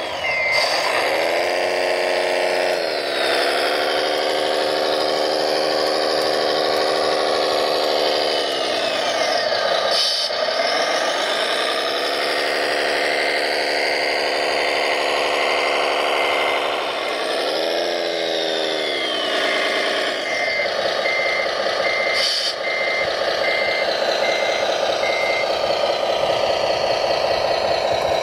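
RC scale Komatsu mining dump truck running, its engine note steady but twice dropping and rising again in pitch. A reversing beeper sounds regularly, about once a second, from about halfway until near the end.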